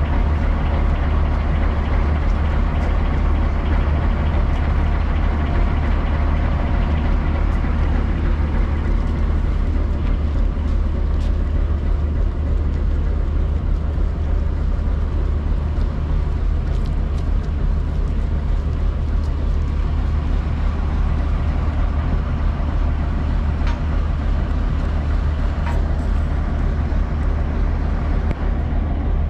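Diesel engine of a moored passenger riverboat idling steadily, a deep, even low hum.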